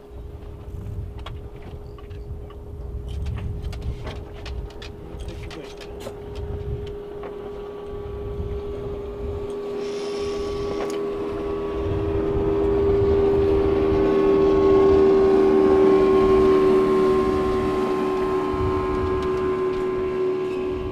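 Motorboat outboard engine running at a steady pitch, growing louder about ten seconds in and loudest a few seconds later, with wind rumbling on the microphone and a few light knocks early on.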